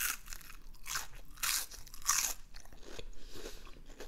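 Close-miked bites and chewing of a crispy fried onion ring: a series of sharp, crunchy cracks, loudest in the first two seconds, then softer chewing.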